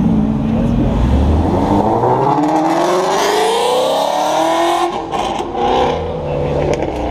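Sports car engine accelerating hard, its note climbing steadily for about three seconds, then dropping off sharply about five seconds in as the revs fall.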